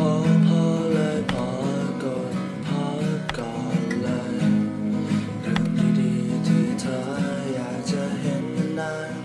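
Background music led by a strummed acoustic guitar, starting abruptly.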